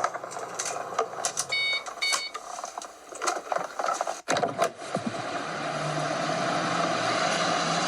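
Car sound effects: a run of clicks and knocks with two short beeps, then about four seconds in a car engine starts and runs steadily.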